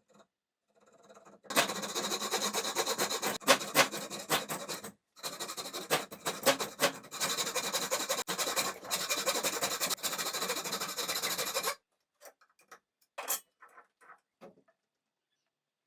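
Hand filing: rapid rasping strokes in two runs, about three and then six seconds long, with a short break between. A few light clicks and taps follow.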